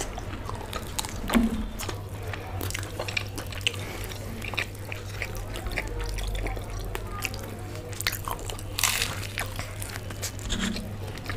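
Two people biting into and chewing fried samosas with crisp pastry shells: irregular crunches and mouth sounds, with a louder crunch about nine seconds in.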